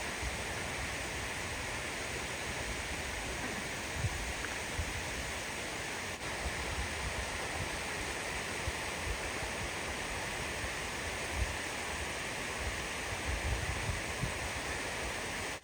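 Steady rush of water from the Lesmurdie Falls waterfall, with occasional brief low bumps.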